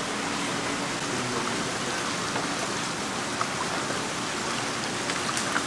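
Water running and splashing steadily in a live fish tank holding gizzard shad, with a few light splashes near the end as a mesh scoop net works in the water.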